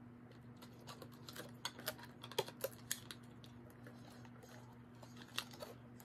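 Small plastic doll parts being handled and fitted together: faint, irregular clicks and taps, a quick flurry about a second in and a few more near the end.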